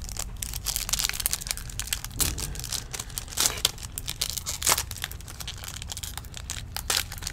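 Foil wrapper of a Topps Stadium Club baseball card pack being crinkled and torn open by gloved hands: a dense, irregular run of sharp crackles and rips, loudest about halfway through.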